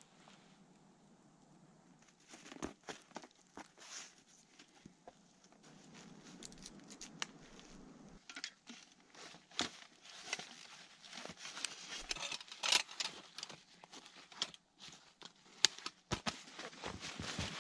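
Rustling and crinkling of camping gear and backpack fabric being handled and packed, with many scattered sharp clicks and knocks. It grows busier and louder about halfway through.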